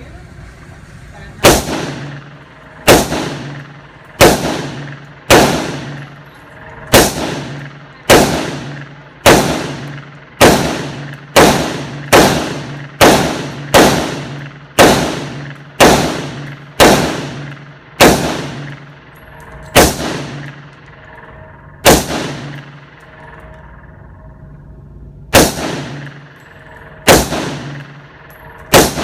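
Semi-automatic firearm fired in slow, steady single shots, about twenty in all at roughly one a second, each crack followed by a short echoing tail, with a pause of a few seconds near the end before firing resumes.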